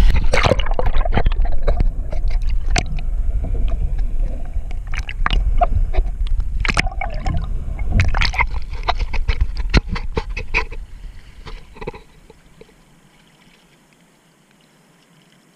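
Water gurgling and sloshing around a camera held underwater, with many small clicks and knocks; it drops away to a faint hiss about twelve seconds in.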